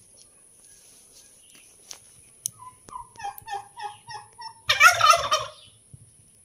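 Domestic turkeys calling: a run of about eight short notes, each falling in pitch, then a loud gobble from the displaying tom nearly five seconds in, lasting under a second.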